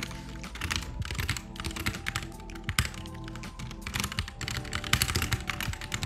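Quick runs of keystrokes typing on a computer keyboard, over soft lofi background music.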